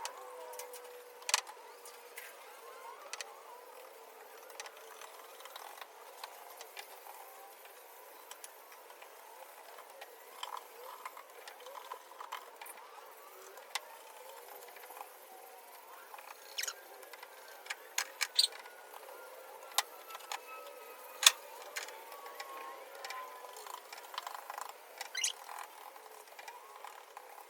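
Scattered light clicks and knocks over a faint hiss, the handling noises of brush-painting a car's bare floor pan: brush, tin and body moving about inside the shell. One sharper click comes about three quarters of the way through.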